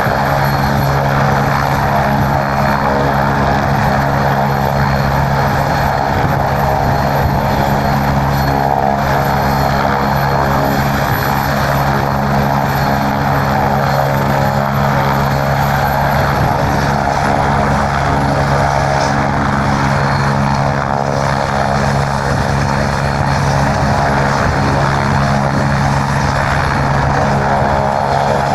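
Medical helicopter's engine and rotor running, a loud, even sound that holds a constant pitch without rising or falling.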